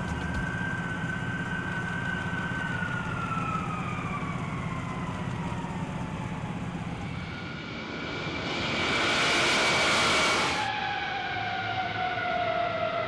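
Turbofan engines of a landing C-5M Super Galaxy, four General Electric F138 turbofans, whining with a pitch that slowly falls as they spool down. A loud rushing surge of jet noise lasts about two seconds a little past the middle, then a fresh falling whine follows.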